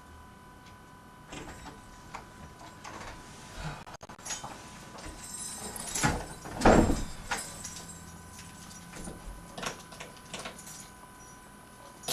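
A door and its latch being handled: a run of knocks, clicks and rattles, loudest about halfway through, over a faint steady hum.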